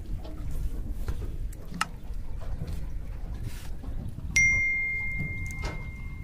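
A single bright ding about two-thirds of the way through, one clear tone ringing away over about two seconds: the notification-bell sound effect of a subscribe-button overlay. Under it, a low steady rumble with a few small clicks.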